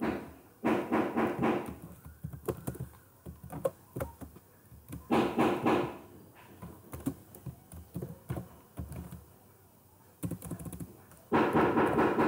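Typing on a computer keyboard, with irregular key clicks as a short line of text is entered. Three brief, louder stretches of a voice break in: near the start, about five seconds in, and near the end.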